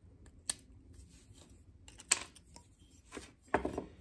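Small screwdriver clicking and scraping against the metal parts inside an antique brass-shell light socket as its center contact is worked loose. A few sharp metallic clicks, the loudest about two seconds in, then a short cluster of clicks near the end.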